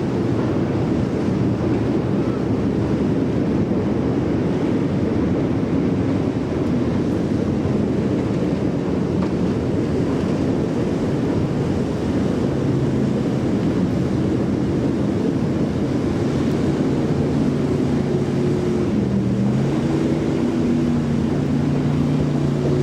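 Wind buffeting the microphone over a steady engine rumble. From about halfway through, a droning engine note comes in and shifts up and down in pitch in steps.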